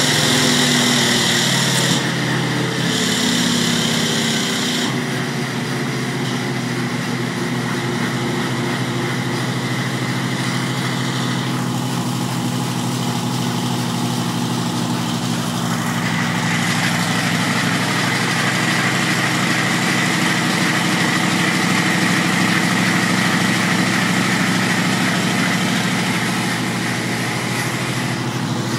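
Yamaha MT-01's big air-cooled V-twin on a chassis dyno, its pitch falling over the first few seconds as the revs drop, then running steadily at low revs. A steady high-pitched tone runs alongside.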